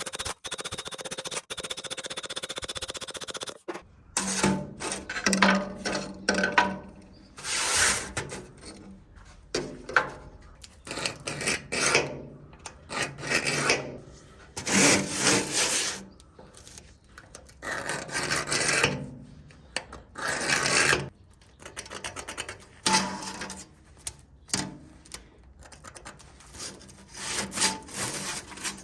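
Hand file or rasp strokes, scraping back and forth at an uneven pace, each stroke about half a second to a second long. Before the strokes, a steady machine noise runs and stops about four seconds in.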